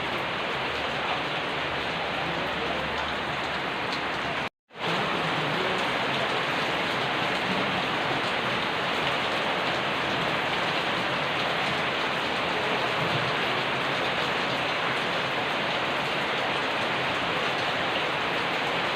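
Steady heavy rain falling and pattering on surfaces, an even hiss with the sound cutting out completely for a moment about four and a half seconds in.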